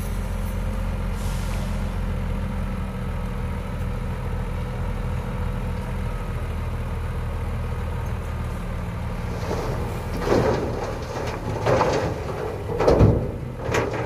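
Hyundai dump truck's engine running steadily while the tipper body is raised. From about ten seconds in, the load of soil slides and drops out of the bed in several loud rushes, the heaviest with a deep thud about thirteen seconds in.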